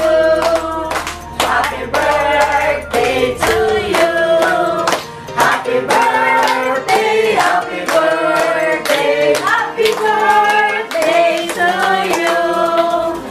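A small group of men and women singing together while clapping their hands in time.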